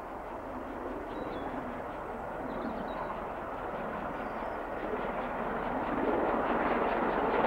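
Steam locomotive hauling a train in the distance, its exhaust a rushing sound that grows steadily louder as it approaches.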